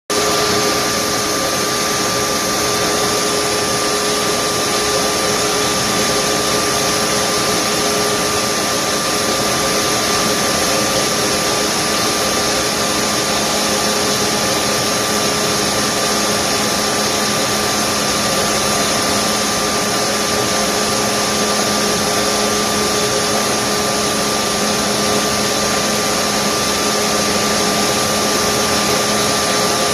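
Blastpro walk-behind steel shot blaster running with its dust collector: a steady, loud whirring hiss with a constant high whine, a low hum joining about halfway through.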